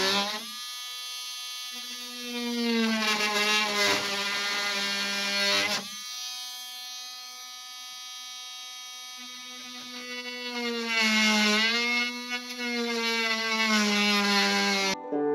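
Cordless drill motor whining as it works into the wooden window frame, its pitch sagging and recovering under load. It eases off for a few seconds midway, then runs hard again and stops abruptly near the end.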